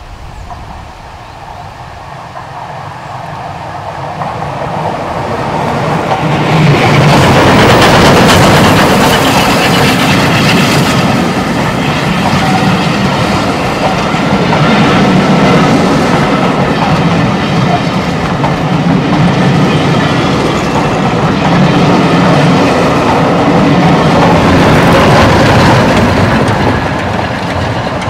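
Steam-hauled train approaching and passing close by: it grows louder over the first several seconds, then the locomotive and its carriages run past loudly, easing off slightly near the end.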